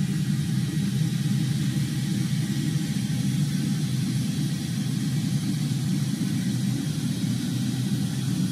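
Steady low rumble of machinery in the cockpit of a parked WP-3D Orion, with a fainter hiss above it and no change in pitch or level.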